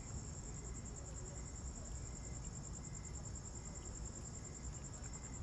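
Crickets chirping in a steady, fast-pulsing high trill, over a low rumble.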